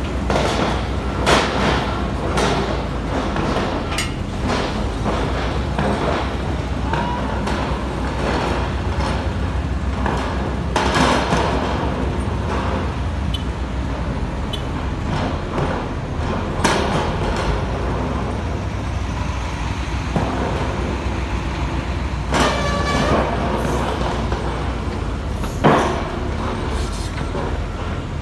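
Earth drill rig's diesel engine running steadily under load, with repeated metallic clanks and knocks from the drilling gear and a short squeal late on.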